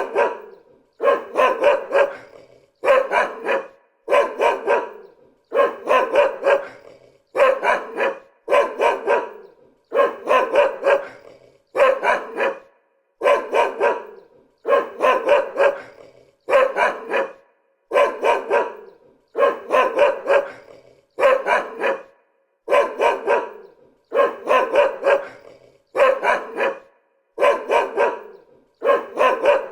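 A dog barking over and over, one short bark burst roughly every second, each much like the last, with silence in between.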